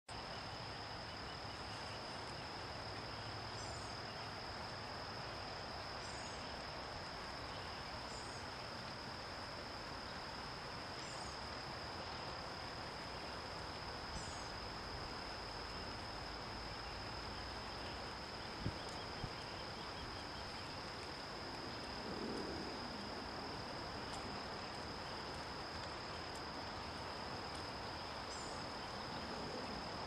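Outdoor ambience: a steady high-pitched insect drone over a constant background hiss, with a short high chirp every few seconds and one sharp click about two-thirds of the way through.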